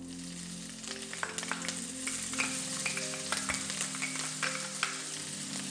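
Chopped onion sizzling and crackling in hot oil in a frying pan as it is scraped in, the crackle starting about a second in.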